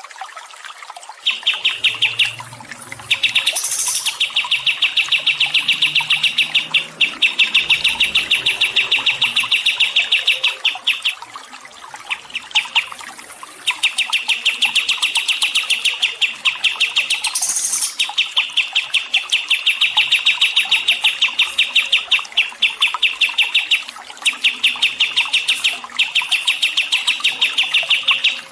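A songbird singing long, fast trills of rapid, evenly repeated chirps, a few seconds per phrase with short pauses between, and two brief higher notes, one about four seconds in and one near the middle.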